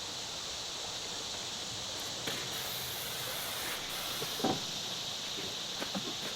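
Aerosol can of insect repellent spraying in short hisses, starting about two seconds in and stopping briefly once before a last burst just after four seconds. A few light knocks follow, over a steady outdoor hiss.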